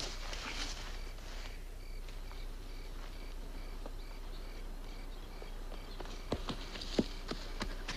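A cricket chirping steadily, about three short chirps a second. From about six seconds in, a quick run of footsteps on a dirt path.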